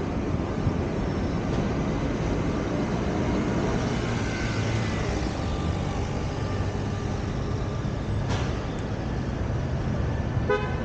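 Steady road and city traffic noise from a car driving through Manhattan traffic, with a short car horn beep near the end.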